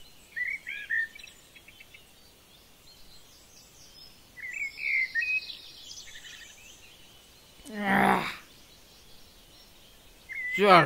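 Outdoor ambience with birds chirping in short bursts, about half a second in and again between four and five seconds in. Near eight seconds a brief pitched vocal sound rises and falls, and another starts near the end.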